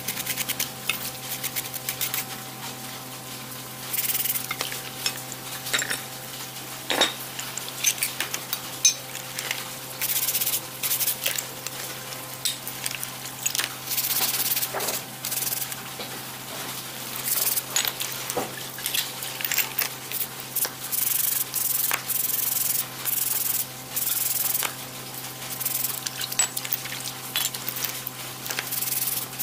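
Stiff plastic-bristled scrub brush scrubbing an antique breast drill's small metal gears in soapy water in a plastic basin, in repeated bursts of quick strokes with short pauses between.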